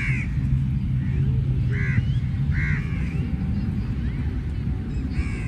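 A crow calling four times in short caws spread over a few seconds, over a steady low rumble.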